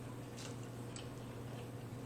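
Close-miked chewing while eating steak tacos: two faint short wet mouth clicks about half a second apart, over a steady low hum.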